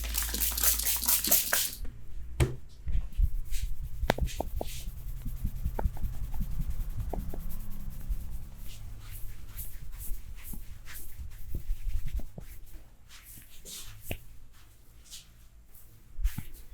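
A barber's hands massaging a client: brisk, loud rubbing for about the first two seconds, then softer rubbing with scattered light taps and clicks.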